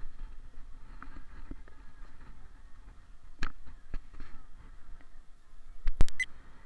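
Low wind rumble on a handheld camera's microphone, with scattered handling clicks and knocks; the sharpest knock comes about six seconds in.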